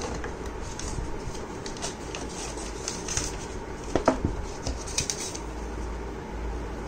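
Paper leaflets being handled inside a cardboard box: paper rustling with light taps and knocks against the cardboard, the loudest knock about four seconds in, over steady low background noise.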